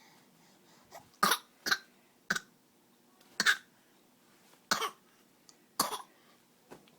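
A baby giving a string of short, deliberate fake coughs: six sharp ones about a second apart, with a couple of fainter ones. The cough is put on as a trick, not a sign of illness.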